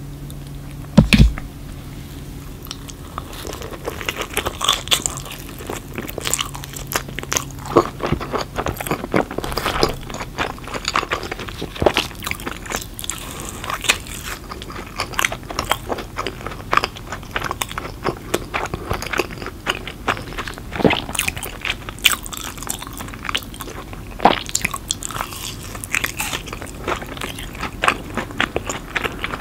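Close-miked eating: biting into and chewing pizza crust and crispy breaded pieces, a dense run of sharp crunches and wet mouth clicks. A single loud thump comes about a second in, before the crunching starts.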